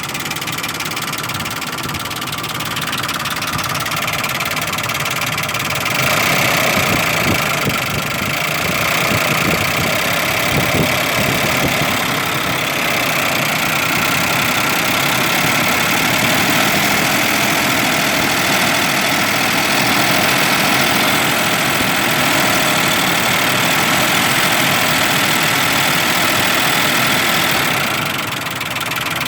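2004 Nissan Xterra's 3.3-litre V6 idling with lifter noise, the owner's sign of bad lifters. It grows louder from about six seconds in and drops back near the end.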